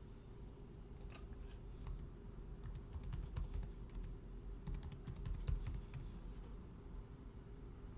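Typing on a computer keyboard: scattered keystrokes from about a second in, with quicker runs around three and five seconds in, over a low steady hum.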